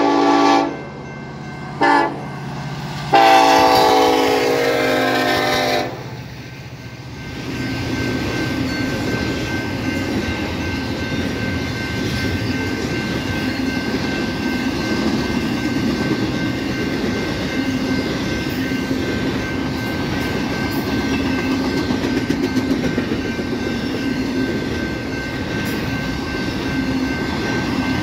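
Union Pacific freight locomotive's air horn blowing: the end of one blast, a short toot about two seconds in, then a longer blast that stops about six seconds in. The double-stack container train then rolls past with a steady rumble and wheel-on-rail clatter.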